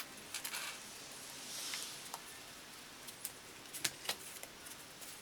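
Scattered light clicks and soft rustling from hands working on a car seat, hooking parts back into place during reassembly; a small cluster of sharper clicks comes about four seconds in.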